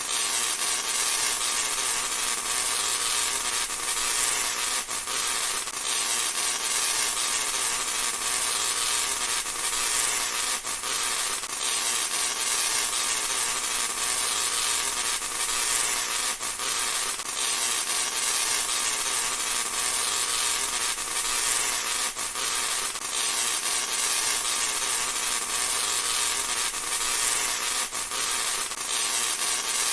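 Tesla coil discharging continuously: a dense, steady crackling buzz, hissy and bright, with occasional sharper snaps.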